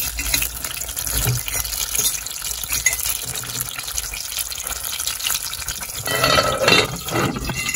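Chicken deep-frying in hot oil in an aluminium pot, sizzling and crackling steadily. About six seconds in, a louder rustle is heard for a second or so.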